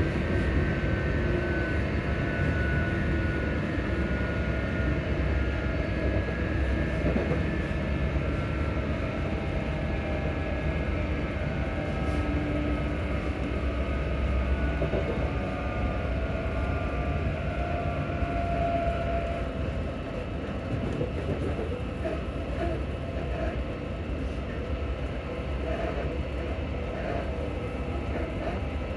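Interior of a ScotRail Class 334 electric multiple unit running between stations: a steady rumble of wheels on rail with a faint traction-motor whine, its pitch sliding down in the first few seconds and edging up again near the end.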